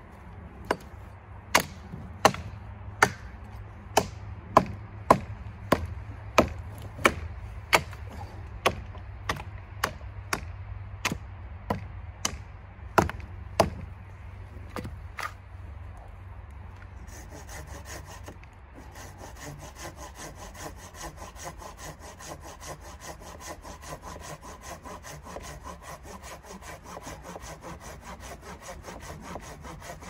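Hatchet chopping into a fallen pine branch, sharp strikes about two a second. After a short pause about halfway through, a folding pruning saw cuts the branch with rapid back-and-forth strokes.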